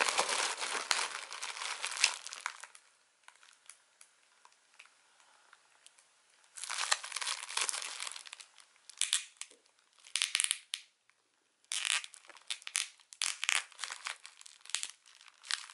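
Plastic bubble wrap crinkling and crackling as it is squeezed and twisted in the hands, in several bursts with a quiet stretch of a few seconds after the first.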